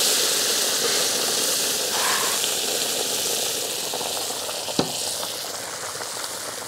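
Hot water sizzling and hissing on ghee-roasted semolina in a brass pot, the sizzle slowly dying down as the water settles. A spatula stirs it, with one sharp tap about five seconds in.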